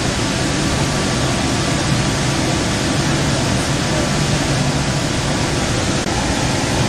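Sound Transit Central Link light rail car running at speed, heard from inside the car: a steady, even rumble and hiss of wheels on rail, with a low hum and a faint steady tone.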